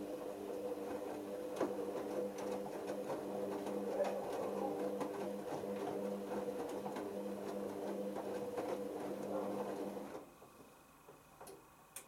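Hoover Optima OPH714D washing machine tumbling its drum in the main wash: a steady motor hum with water and wet clothes splashing and knocking inside the drum, stopping suddenly about ten seconds in.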